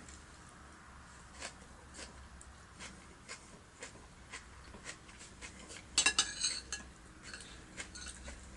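Cutlery clinking and tapping against a plate during a meal: scattered light clicks, with a louder cluster of clinks about six seconds in.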